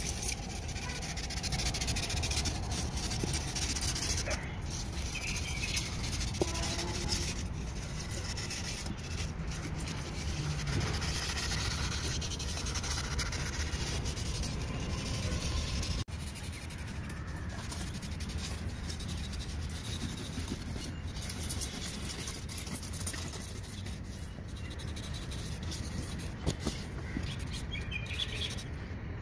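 Knife blade scraping and carving polystyrene foam: a continuous rough rubbing over a low steady rumble, changing abruptly about halfway through as a second stretch of carving begins.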